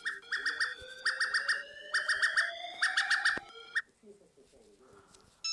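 Electronic chirping alarm tone from a mock Emergency Alert System alarm: bursts of about five rapid chirps over a slowly rising whistle, repeating about once a second. It stops about four seconds in, leaving near silence.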